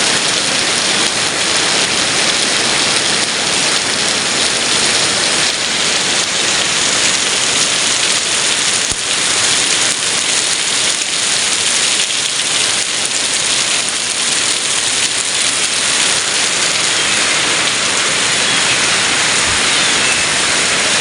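Heavy rain pouring down steadily, a dense even hiss of downpour on surfaces.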